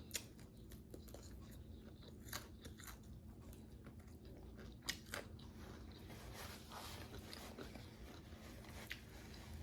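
Chewing crispy, hard-fried chicken wings close to the microphone, with a few faint crunches now and then.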